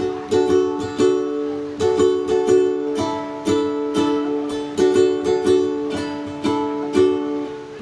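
Music: an acoustic string instrument strummed in a steady rhythm of chords, with no singing.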